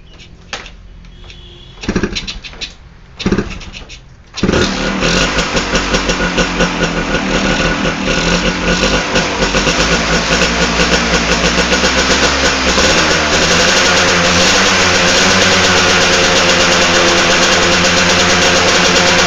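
Suzuki RC100-based two-stroke motorcycle engine, built road-race style with an oversize bore, a Satria carburettor, an RGR head and a doubled RXZ reed valve. It sputters twice without catching, then starts about four seconds in. It runs unevenly at first, then settles into a steady, loud fast idle.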